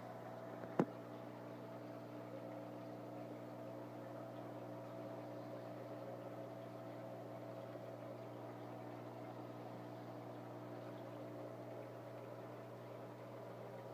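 Aquarium filter running: a steady electrical hum over a soft hiss of moving water, with one sharp click about a second in.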